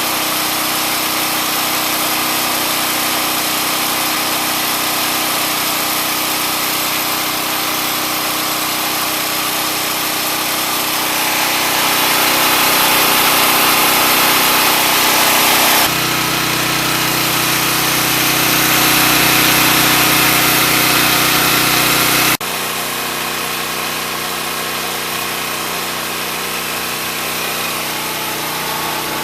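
Chicago Electric 3500-watt portable generator's 7 hp single-cylinder OHV engine running at a steady speed. It gets louder about a third of the way in and drops abruptly about two-thirds of the way through.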